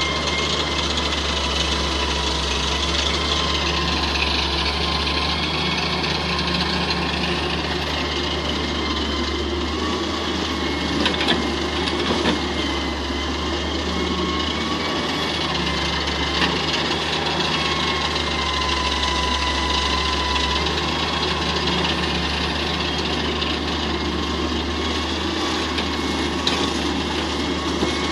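Diesel engines of a Hitachi wheeled excavator and a tractor running steadily under a low drone, with a high whine that drifts slightly in pitch as the excavator works its arm and bucket. A few brief knocks come a little after ten seconds in.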